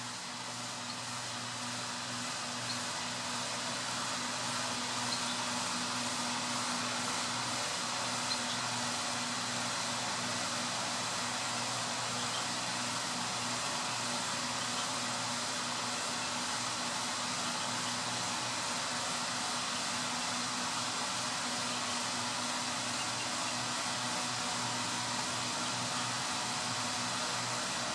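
Model train rolling slowly along the track: a steady whirring hiss with a low hum. It builds over the first few seconds, then holds even.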